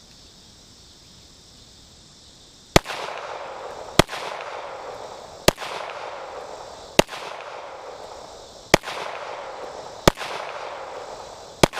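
.45-calibre pistol firing seven shots at a slow, steady pace, starting about three seconds in, each shot followed by a long echo rolling back off the surroundings.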